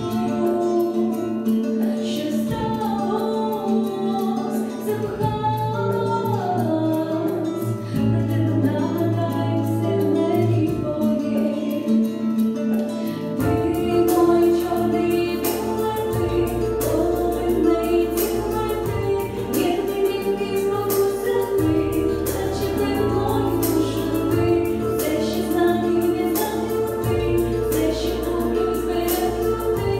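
A young woman singing a song solo into a microphone over instrumental accompaniment. About halfway through, the accompaniment fills out with a deeper bass and a steady beat.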